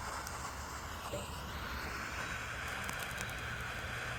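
Turboflame butane mini blow torch lighter, locked on and burning with a steady jet hiss. Twigs start to crackle faintly in the flame near the end.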